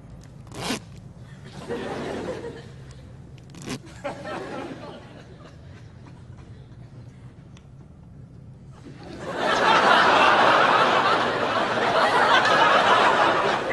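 Studio audience laughter swelling up loudly about nine seconds in and carrying on, after a quieter stretch broken by two short sharp sounds a few seconds apart.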